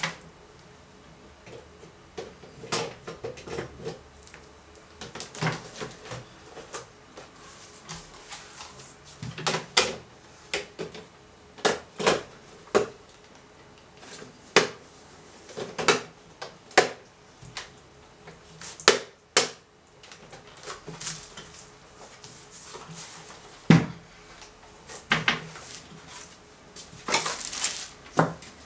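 Irregular knocks, clicks and clatter of a Dell UltraSharp 2515H monitor and its metal stand being handled and fitted together on a tabletop, with short stretches of rustling. The sharpest knocks come about two-thirds of the way through.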